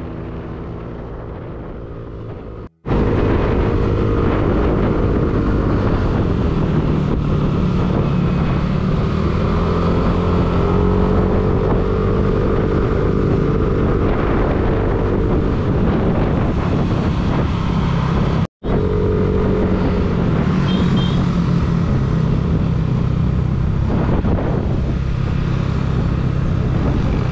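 Motorcycle engine running while riding, its note rising and falling with the throttle, over steady road and wind noise. A music track fades out in the first couple of seconds, and the sound drops out for a moment twice.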